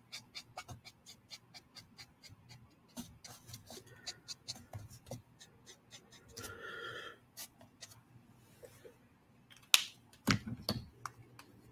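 Copic marker tip rubbed quickly back and forth on sketchbook paper, about six short scratchy strokes a second at first, then more irregular. Near the end a sharp click and a few knocks.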